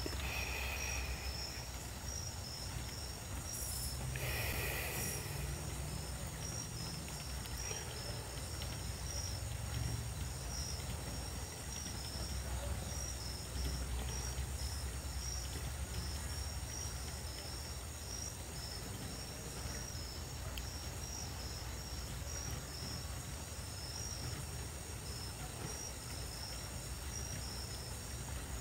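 Crickets chirping, a continuous run of quick, evenly repeating high-pitched pulses, over a steady low rumble.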